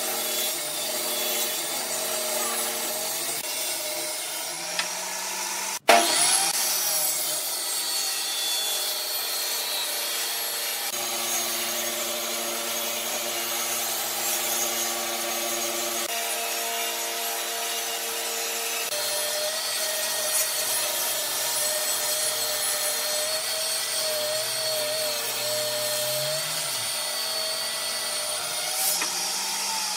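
Benchtop table saw ripping a wooden board along its fence: the motor and blade run steadily under load with a continuous cutting hiss. There is a brief break and a sudden loud jump about six seconds in.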